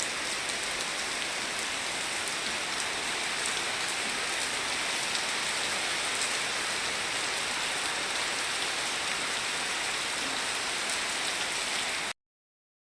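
Steady hissing noise with faint scattered ticks, cutting off suddenly about twelve seconds in.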